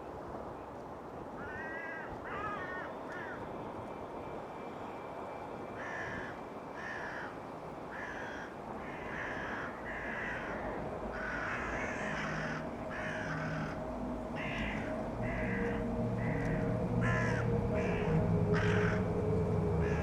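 Crows cawing repeatedly, harsh calls about once a second, over a steady rush of wind. A low steady drone comes in about halfway and grows louder toward the end.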